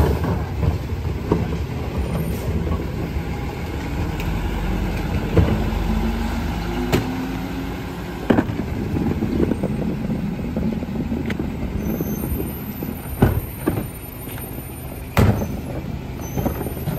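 Peterbilt garbage truck with a New Way rear-loader body running at the curb, with a steady engine and hydraulic drone. Plastic recycling carts bang against the rear hopper as they are tipped in by hand, giving about five sharp knocks spread through the stretch.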